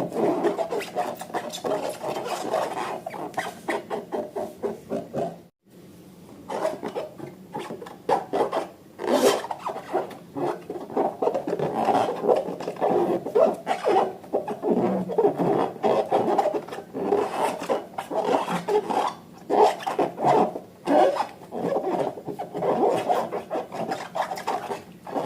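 Slime being squeezed and stretched by hand: continuous irregular sticky crackling and squelching, broken once by a short gap about five and a half seconds in.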